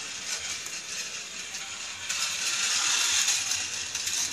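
Small toy train running down a long plastic toy track: a steady high hiss of its wheels on the plastic with light clicks, a little louder about two seconds in.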